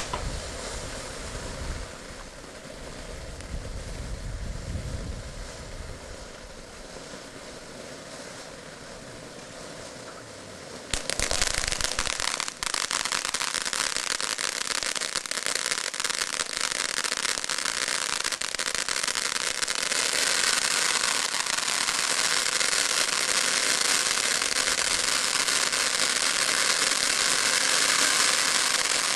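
Kimbolton Glittering Gemstones firework fountain burning with a steady hiss of sparks. About eleven seconds in, the next linked fountain catches, and the sound jumps suddenly to a louder, dense crackling hiss that runs on.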